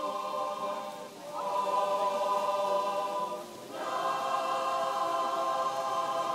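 Mixed choir of men's and women's voices singing unaccompanied, holding long chords, with two brief breaths between phrases about a second and three and a half seconds in.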